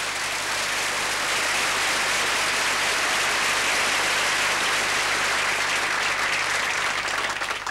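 Studio audience applauding steadily, building up over the first second and cut off sharply at the end, welcoming the act that has just been introduced.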